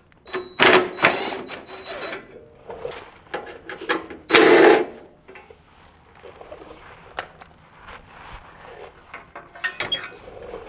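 Cordless drill spinning bolts out of a lawn tractor's sheet-metal belt-guard cover: a steady whining run of about a second and a half, then a shorter half-second run a few seconds later. Light metallic clicks and clatter follow as bolts and the cover are handled.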